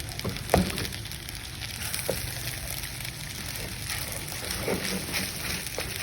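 Food sizzling as it is stir-fried in a pan, with a few knocks of a cooking spoon or spatula against the pan, the loudest about half a second in.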